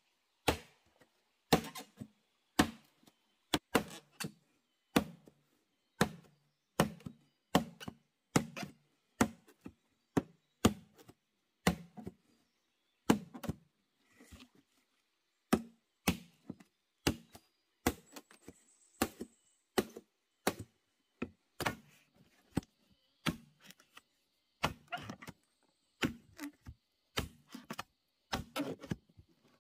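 Machete chopping bamboo: a long run of sharp blows, roughly one a second and sometimes in quick pairs, each with a short hollow thud, with a couple of brief pauses.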